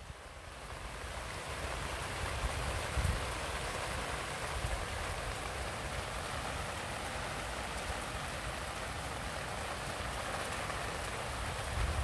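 Steady rain falling, an even hiss that grows louder over the first second or two and then holds.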